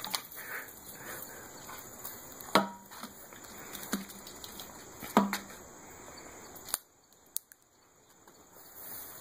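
Four sharp knocks, each with a brief low ring, spaced about a second and a half apart.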